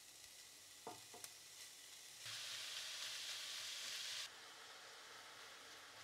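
Raw ground beef sizzling in a hot pan of oil and fried onions as it is stirred with a spatula. A couple of light taps come about a second in, then the sizzle swells for about two seconds in the middle before dropping back to a faint hiss.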